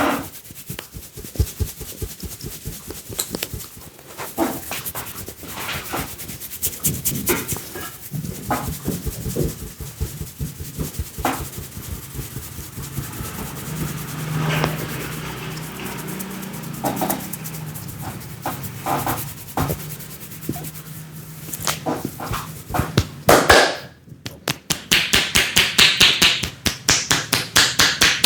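Hands massaging a head: irregular slaps and rubbing on skin and hair, breaking into fast, even tapping of about four to five strikes a second near the end. A low, drawn-out pitched sound runs through the middle.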